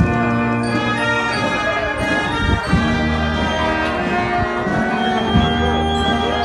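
Processional brass band playing a slow funeral march: long held brass chords over deep bass notes, with a drum stroke roughly every two and a half seconds.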